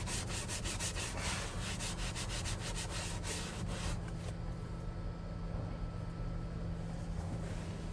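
Scuff pad scrubbing a leather car-seat bolster wet with prep cleaner, in quick back-and-forth strokes that stop about halfway through. A steady low hum runs underneath.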